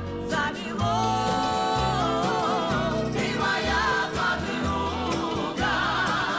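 Music: a song with singing voices held in long notes with vibrato over a steady bass line.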